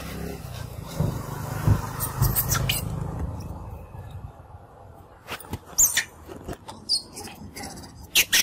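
A low rumble for the first few seconds, then a run of short, sharp high squeaks and clicks from about five seconds in, one with a quick rising sweep.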